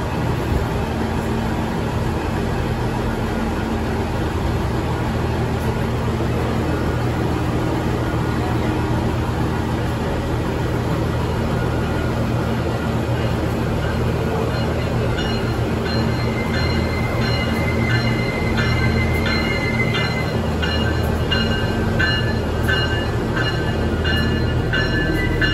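Nippon Sharyo diesel multiple-unit trains: a steady low diesel engine hum runs throughout. From about halfway, as a second train pulls in, a high squeal is drawn out for a few seconds and a high ringing repeats at an even pace.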